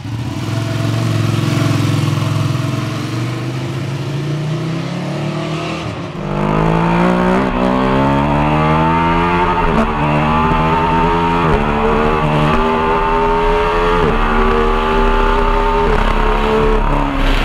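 Ducati 1299 Panigale S's L-twin engine. First it pulls away and runs at a steady low speed. From about six seconds in it is at full throttle under hard acceleration, its note climbing and dropping sharply at each quick upshift several times, with wind rush.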